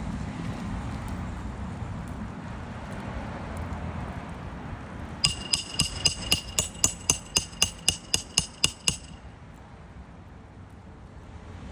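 A hammer striking metal about fifteen times in quick succession, roughly four blows a second, each blow ringing. This is hammering on a nail or a flat bar during an asphalt shingle repair.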